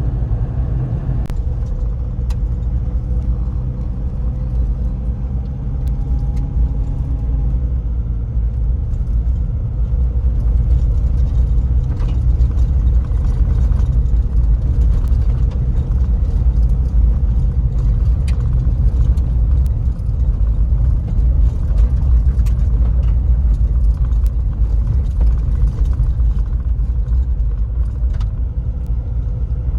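A car being driven: a steady low road-and-engine rumble, with a few small clicks and rattles.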